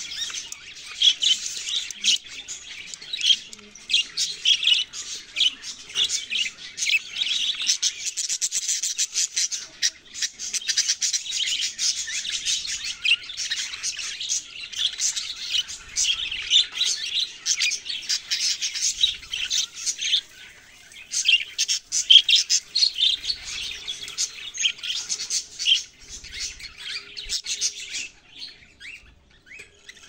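Budgerigar nestlings begging while being fed, a dense run of rapid, high chirps. There is a brief lull about twenty seconds in, and the calling thins out near the end.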